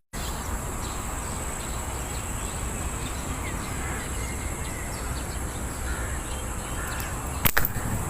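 Steady outdoor background with a high, even insect buzz and faint bird calls. About seven and a half seconds in, a sharp double snap of a slingshot shot being loosed at a pigeon.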